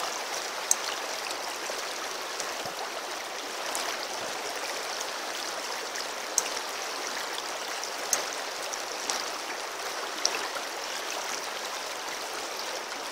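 Shallow river running over a riffle: a steady rushing hiss of flowing water, with a few brief sharp ticks scattered through it.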